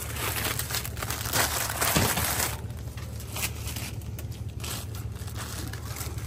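Rustling and crinkling noise, loudest in the first two and a half seconds, then quieter with a few light clicks, over a steady low hum.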